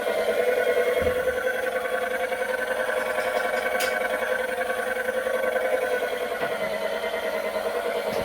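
Panasonic cordless wet mop cleaner's motor running with a steady hum, with a brief click about four seconds in.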